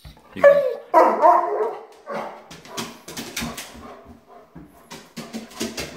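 German Shepherd giving two loud, wavering whining howls in the first two seconds, then a shorter, quieter call, then a run of light clicks and taps, its claws moving on the wooden floor. The vocalising is the dog's protest at being left behind.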